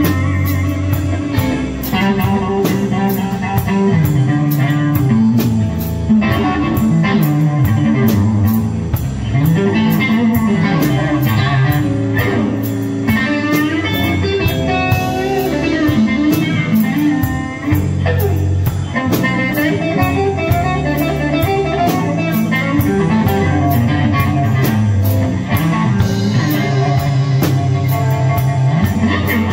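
Live blues band playing a slow blues: electric guitar and bass over a drum kit, with steady cymbal strokes.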